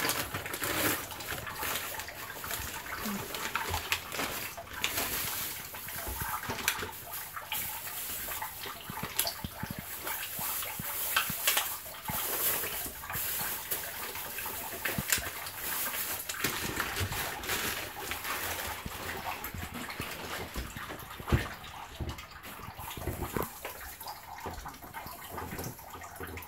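Eggs being cracked and beaten in a bowl: many irregular taps and clinks, with water splashing.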